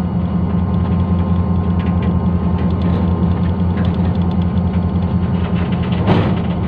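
Diesel locomotive engine running steadily with a deep hum, heard close up from on board as the goods train moves slowly, with light clicks and clanks from the wheels and wagons. A brief sharper clatter about six seconds in.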